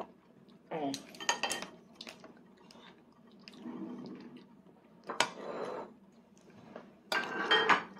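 Metal baby spoon clinking and scraping against a plastic divided plate in four short bursts.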